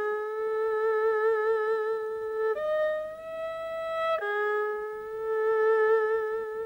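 Background music: a slow melody of long held notes with vibrato, moving to a new note about two and a half seconds in and again a little past four seconds.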